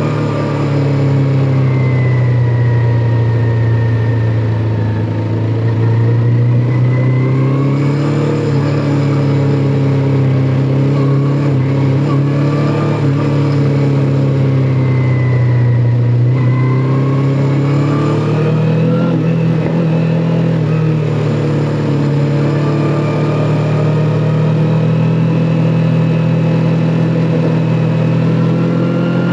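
Kawasaki Ninja 400's parallel-twin engine pulling along on the road, its pitch falling and rising several times with the throttle and sitting higher in the last ten seconds or so.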